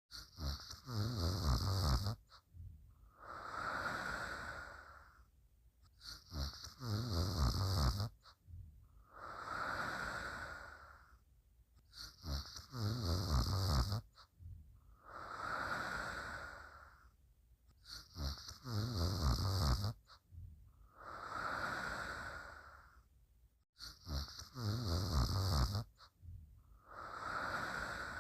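Slow, quiet snoring, one breath about every six seconds: each a low rattling snore followed by a softer breathy whoosh.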